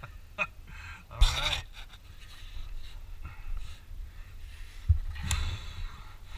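A canyoneer breathing hard while getting onto a rappel rope, with a short voiced grunt about a second in and another about five seconds in, over a steady low rumble.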